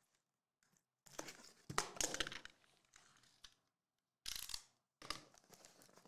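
Cardboard and paper packaging rustling and scraping as a collectible box is opened by hand. It comes in several short bursts, the loudest about a second or two in.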